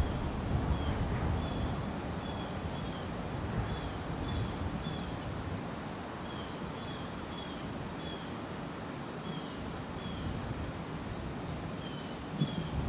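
A bird calling with short, high, slightly falling chirps about twice a second, over a steady rush of wind that gusts louder near the end.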